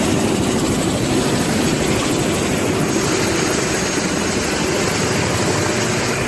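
Helicopter engine and rotor running: a loud, steady rush of noise with a fast, fine chop.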